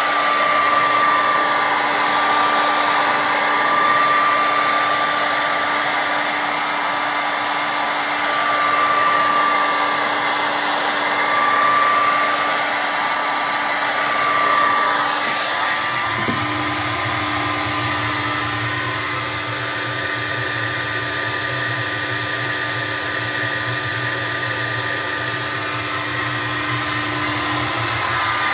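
Hand-held hair dryer blowing hot air into the drum of a condenser tumble dryer, a steady rushing noise with a high whine that swells and fades every few seconds; a lower hum joins about halfway through. The warm air is to clear the dryer's F06 error, which appears when the machine is below about 0 °C.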